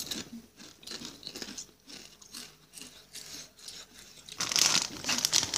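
Doritos tortilla chips being chewed with repeated small crunches. A louder rushing, rustling noise sets in about four seconds in.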